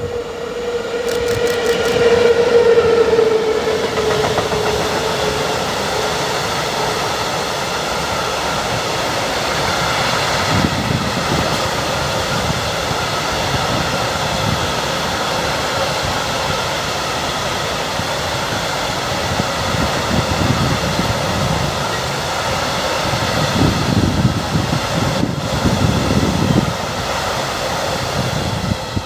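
EU07 electric locomotive passing with a freight train of open coal wagons. A strong whine from the locomotive swells in the first few seconds, sags slightly in pitch and fades. Then the wagons roll past with steady wheel rumble and rail clatter, which falls away near the end as the train clears.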